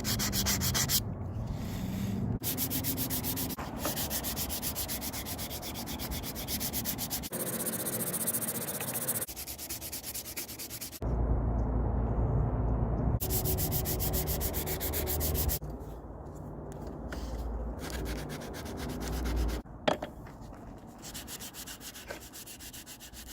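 Sandpaper rubbed by hand over an old hatchet in fast back-and-forth strokes, sanding it down for restoration. It comes in several short stretches that cut in and out abruptly, each with a different tone.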